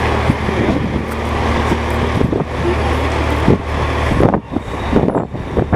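Fire truck engine running with a steady low hum, mixed with scattered knocks and clatter; the hum drops away about four seconds in.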